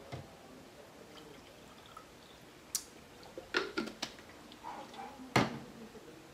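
Blue plastic drink bottle being handled and drunk from: a few sharp plastic clicks and knocks, with liquid moving inside, the loudest knock about five seconds in.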